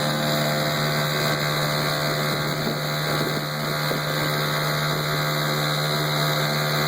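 1973 Mercury Model 40 4 hp single-cylinder, water-cooled outboard motor running steadily at a constant speed.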